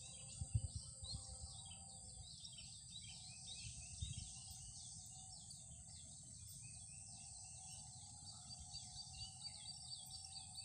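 Faint chirping of small birds, repeated over and over, with a steady high hum underneath. A few low knocks about half a second in.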